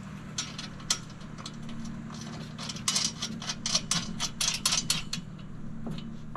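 Small steel fastener hardware, a washer and a lock nut, clinking and clicking as they are picked from a palm and threaded by hand onto a bracket bolt. The light metallic clicks come in a run, densest about three to five seconds in, over a steady low hum.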